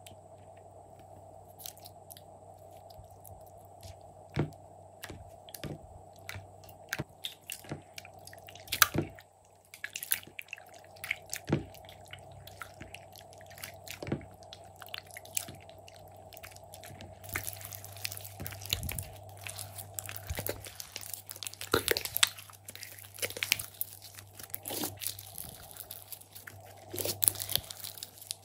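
Thick slime being worked in a glass dish, first stirred with a spatula and then kneaded by hand: scattered sticky clicks and squelches, growing denser and louder about halfway through.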